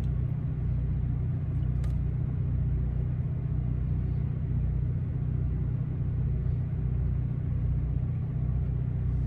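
A steady low rumble with a low hum under it, even throughout.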